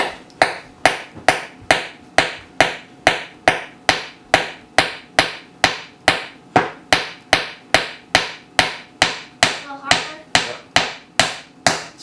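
Claw hammer driving a nail into the wooden side of a birdhouse, in an even run of strikes about two and a half a second.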